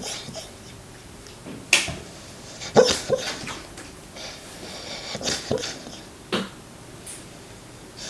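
Four-month-old Great Pyrenees puppy snoring in its sleep: about four short, sharp snoring breaths, a second or two apart, some with a quick second catch right after.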